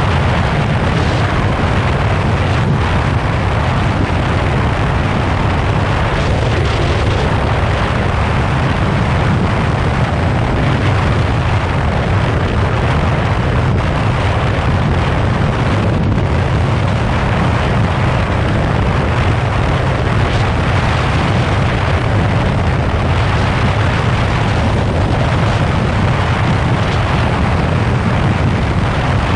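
Steady wind rush buffeting the microphone, the loudest thing throughout, over the running 600 cc inline-four engine of a 2015 Yamaha FZ6R motorcycle being ridden.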